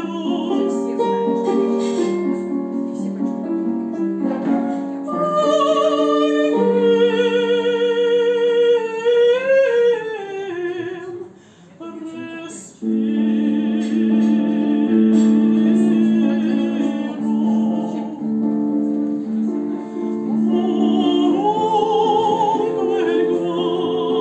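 A woman singing in classical operatic style with a wide vibrato, accompanied by a digital piano. The music drops off briefly a little before halfway, then comes back in full.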